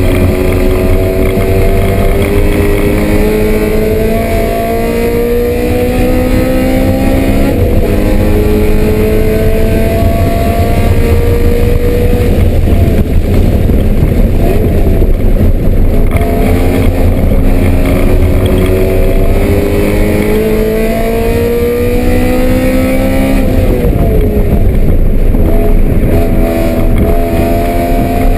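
BMW M3 race car engine under hard acceleration, its pitch climbing and dropping back at each upshift several times over, with heavy low rumble of wind and road noise.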